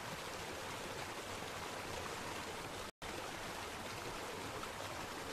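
Steady, even rushing noise with no voice, broken by a split-second dropout about three seconds in.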